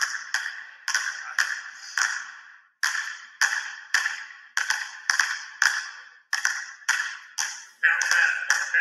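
Two basketballs dribbled on a hardwood gym floor: a steady run of sharp bounces, about two to three a second, each echoing briefly in the gym, with short breaks twice.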